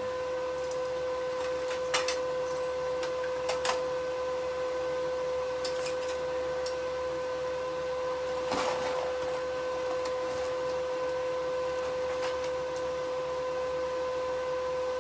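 Steady electrical hum from a TIG welding setup: one constant mid-pitched tone with fainter overtones. A few light clicks and taps of handling come through it, the most noticeable about two, four, six and nine seconds in.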